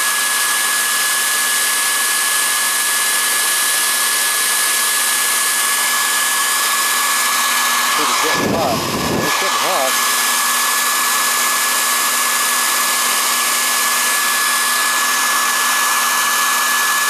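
Hand-held travel hair dryer blowing steadily: a constant rush of air with a steady high whine from its motor. About halfway through there is a brief low rumble, and then the steady blowing goes on.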